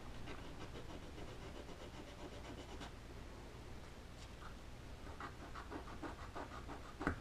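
A small wooden part being hand-sanded in quick, short back-and-forth strokes, in two runs with a short pause between them. There is a sharper tap near the end.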